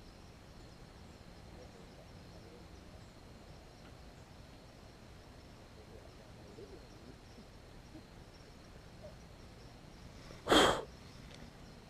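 Faint, steady night insect chorus with a thin high drone, broken near the end by one short, loud burst of noise.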